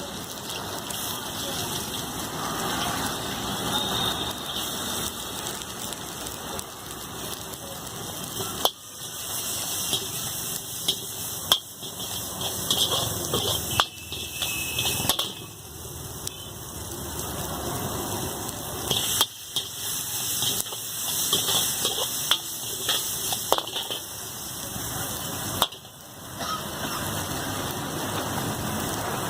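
Street-food stall cooking noise: a steady sizzle or hiss with sharp clicks and clinks of metal utensils, and voices in the background.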